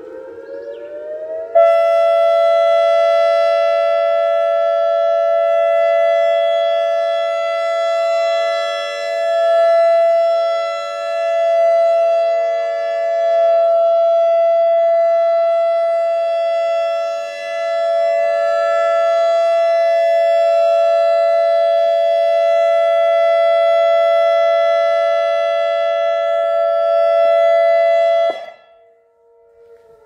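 ACA Alertronic AR-1600 electronic siren sounding a loud steady tone that swells and dips as the rotating horn turns, then cuts off abruptly a couple of seconds before the end. A fainter siren glide rises before the steady tone comes in, and another falls away after it stops.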